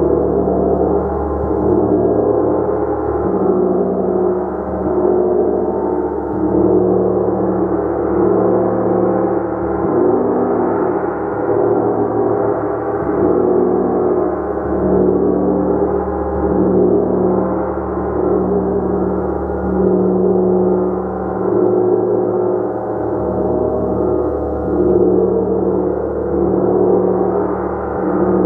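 A large gong played continuously: a dense, sustained ringing wash of many overlapping tones that swells and eases about every two seconds, never dying away.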